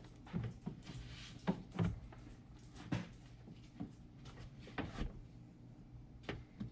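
Faint scattered knocks, clicks and rubbing as an aftermarket air intake tube is handled and pushed onto the coupler on the throttle body.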